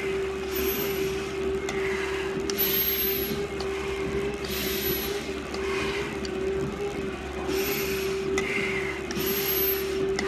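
A firefighter breathing hard through a full-face respirator mask, one rushing breath about every one to two seconds, each with a faint squeak from the mask's valve. Under the breathing is a steady hum.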